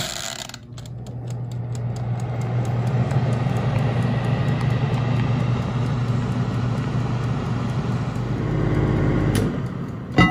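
Countertop halogen convection oven's fan motor starting up, building over the first couple of seconds into a steady whirring hum, then stopping abruptly about nine seconds in; a sharp click follows near the end.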